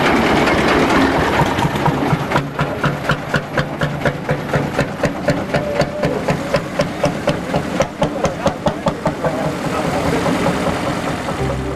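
Vintage engine running slowly, chugging in evenly spaced beats of about three a second amid general engine noise. The beats stand out clearly from about two seconds in and blur back into the din near the end.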